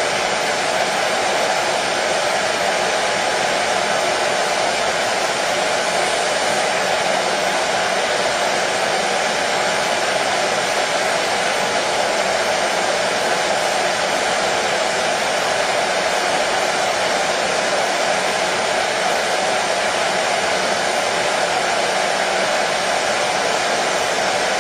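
Hair dryer running continuously, a steady even rushing of air and motor hum with no change in speed.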